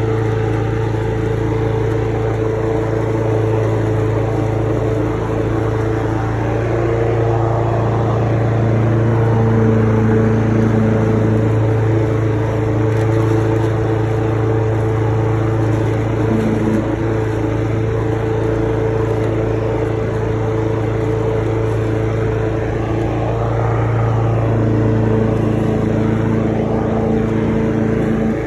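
Lawn mower engine running steadily while mowing: a constant engine drone, its higher tones shifting slightly in pitch now and then.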